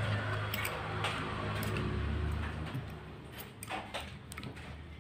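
Metal fork and spoon clicking and scraping against a ceramic plate while pulling flesh off grilled tuna jaw bones: scattered light clinks over a low background hum that drops away about three seconds in.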